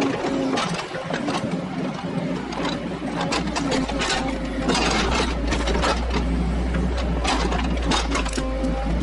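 Kubota KX121-3 mini excavator's diesel engine running, with irregular knocks and scrapes of stones being handled by the bucket and thumb. A deeper low rumble comes in about three seconds in and holds.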